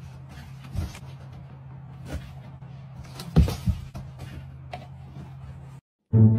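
Kitten pawing at a torn hole in a cardboard box: a few short scrapes and taps on the cardboard over a steady low hum. The sound cuts off near the end.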